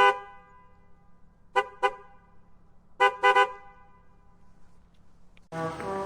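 Car horn honking: one short blast, then two quick toots, then three quick toots, each a steady two-note tone. Near the end a different horn sound starts, playing changing notes like a tune.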